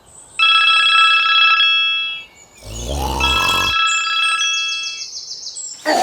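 A trilling electronic ringing tone, like a telephone ringtone, sounding twice with a pause between, and a short low swooping sound in that pause.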